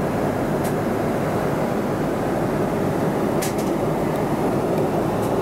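Steady cabin noise of a Boeing 777-200ER in flight: a constant, even rush of airflow and engine sound, with a couple of faint ticks.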